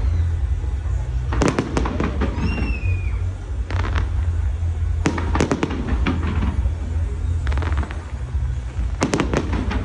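Aerial fireworks going off: clusters of sharp crackling reports, several times over, above a constant low rumble. There is a brief falling whistle about two and a half seconds in.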